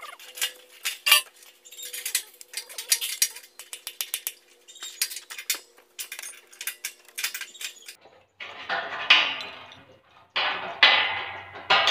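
Ratchet wrench clicking in quick irregular runs, with sharp metal clinks, as bolts are loosened on a steel floor frame.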